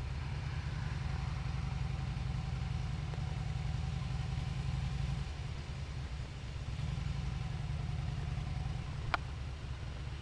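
Motorcycle engine running at low speed, heard from the bike itself, easing off about halfway through and picking up again a second or so later. A single sharp click comes near the end.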